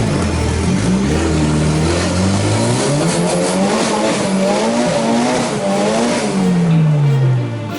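Off-road 4x4's engine revving hard, its pitch repeatedly climbing and dropping, then winding down in one long falling glide near the end.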